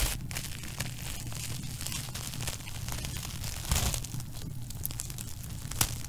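Wood fire crackling in a fireplace: frequent small pops and snaps over a steady low rumble of flame. A louder flurry of crackling comes a little past halfway, and a sharp pop comes near the end.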